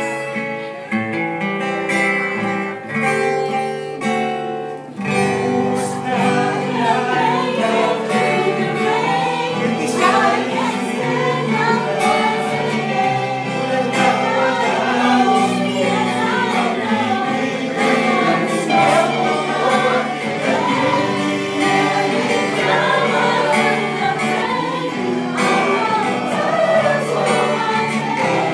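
Music with singing, played for a dance routine: held chords for about the first five seconds, then a fuller section with sung melody over it.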